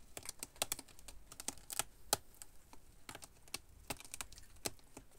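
A cat's claws raking a sisal-rope scratching post: irregular scratchy clicks, a few a second.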